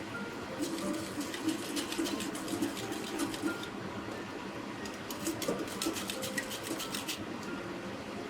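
Two quick runs of light clicking taps, the first about three seconds long and the second starting about five seconds in.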